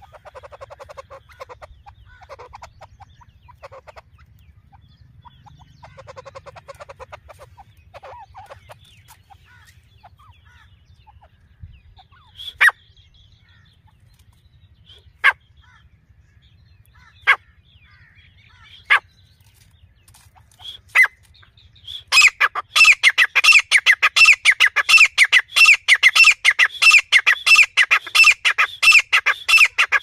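Female grey francolin calling: soft, low clucking notes at first, then single sharp calls every two seconds or so, breaking about 22 seconds in into a rapid, loud run of repeated calls.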